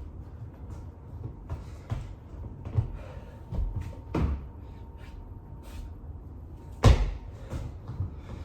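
Irregular thuds and knocks from a person doing burpees and pushups on a floor, the loudest about seven seconds in.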